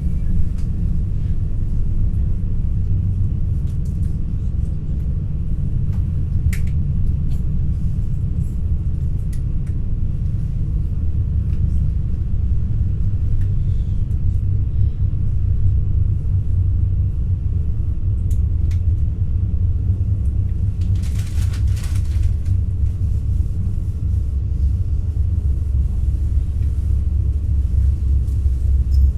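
Steady low rumble heard inside a moving NS Intercity New Generation (Alstom Coradia Stream) electric train, with a few faint clicks and a short hissing rustle about two-thirds of the way through.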